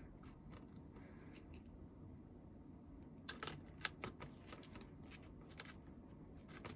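Near silence: room tone with a few faint clicks, most of them clustered a little past halfway.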